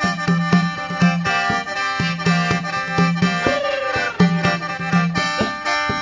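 Khaen, the bamboo free-reed mouth organ of Isan and Laos, playing steady sustained chords over a rhythmic beat that pulses about twice a second, with a note that slides up and back down a little past halfway.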